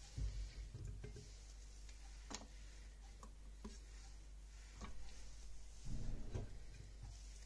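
Raw potato slices being set down one by one onto a ridged nonstick grill pan: soft taps and a few light clicks, spaced a second or so apart, over a low steady hum.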